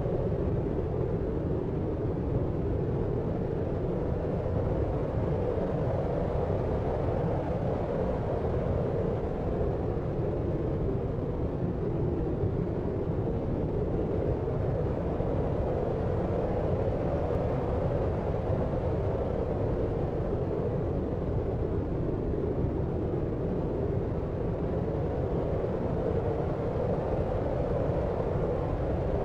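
Steady deep noise, a low rushing hiss with most of its weight in the bass and lower mids and little treble, unchanging throughout.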